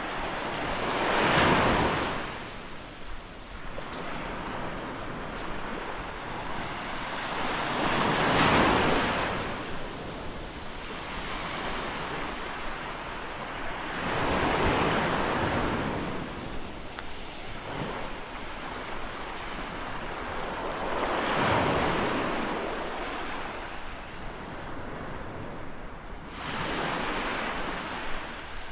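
Small Gulf of Mexico waves breaking on a sandy beach: five waves wash in, one about every six to seven seconds, with a steady hiss of surf between them.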